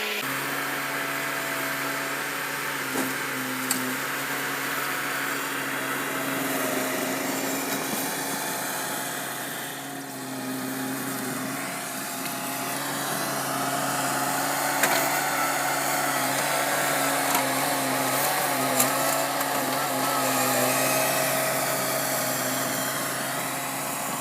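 Bobcat skid steer's engine running steadily under working load, with a wavering hydraulic-type whine above the hum and a few sharp knocks scattered through.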